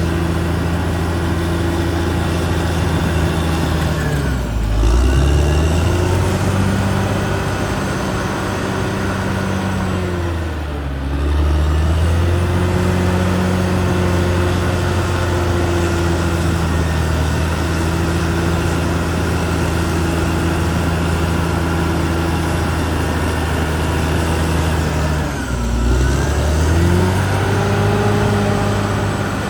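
Caterpillar D6R XL bulldozer's diesel engine running steadily, its pitch sagging and then recovering three times.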